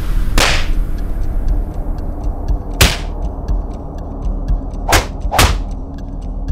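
Horror sound design: a low rumbling drone with sharp whooshing hits, four of them, one near the start and three in the second half, two close together. A faint fast ticking sits underneath.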